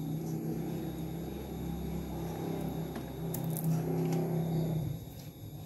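A low, steady engine hum that dies away about five seconds in, with a few light clicks about three and a half seconds in.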